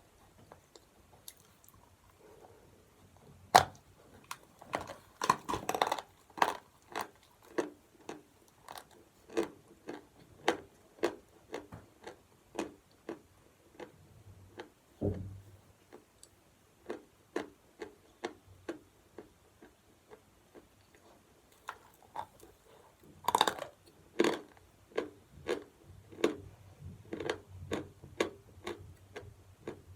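Chalk being bitten and chewed: a long series of short crisp crunches, roughly one a second, some much louder than others.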